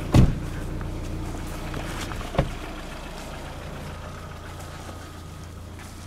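Car engine idling with a steady low hum that slowly grows fainter. Two sharp thumps, one just after the start and another about two and a half seconds in, stand out above it.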